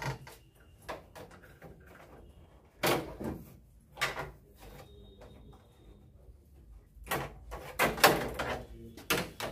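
Hard plastic knocks and clatter from handling the parts of a split AC indoor unit, its long swing louver (flap) among them. A few separate knocks, then a quicker, louder cluster of knocks near the end.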